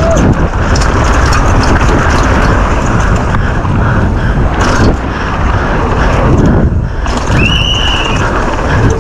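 Downhill mountain bike rattling over a rough trail at speed, with loud wind rush on the microphone. A short high squeal sounds about seven and a half seconds in.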